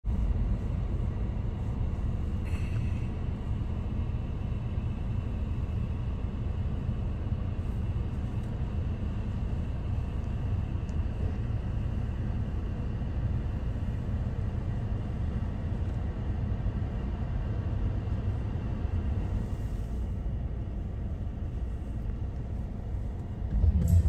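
Blizzard wind buffeting the microphone: a steady low rumble with a faint hiss of blowing snow above it.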